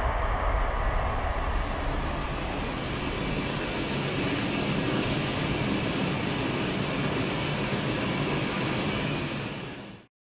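Large custom-built multi-nozzle ring gas burner running at full output: a loud, steady rushing of many gas flames. The sound fades out quickly near the end.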